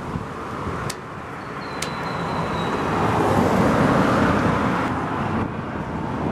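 A motor vehicle driving past: road noise that swells to its loudest about four seconds in, then fades.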